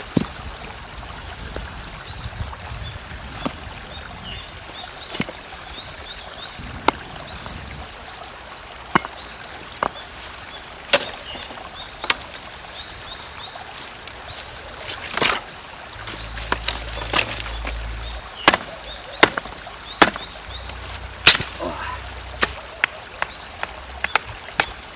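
A string of sharp knocks and clacks at irregular intervals, about one every second or so, over a steady trickle of running water, with small birds chirping.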